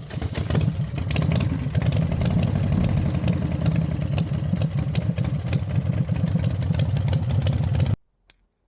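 Suzuki VL800 Volusia's V-twin engine running at idle with a fast, steady pulsing beat. It cuts off suddenly near the end.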